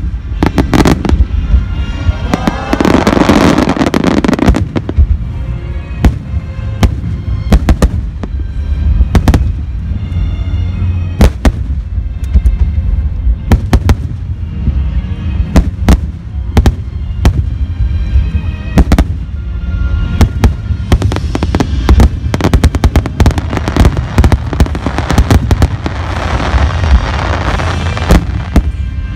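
Aerial fireworks shells bursting one after another, with many sharp bangs over a continuous low rumble and stretches of dense crackling, and music playing underneath.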